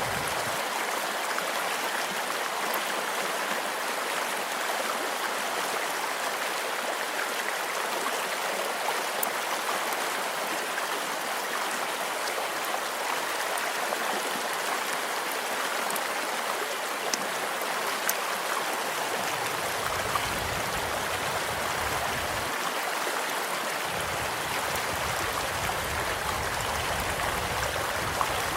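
A gently flowing stream rushes steadily. Sharp crackles and pops from a campfire break through it now and then.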